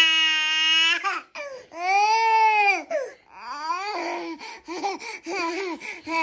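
Baby crying and wailing, wanting a lollipop: one long wail at the start, another about two seconds in, then a string of shorter broken sobbing cries.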